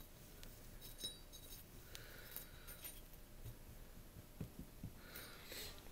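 Faint metallic clinks and a few sharp clicks from a wheel hub assembly with a failed bearing being handled and turned.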